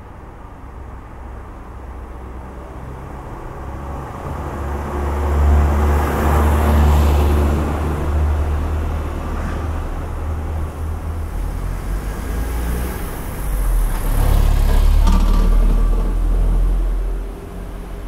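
Motor vehicles passing on a street: engine rumble and tyre noise swell up and fade twice, the second pass with a deeper engine rumble that cuts off fairly sharply near the end.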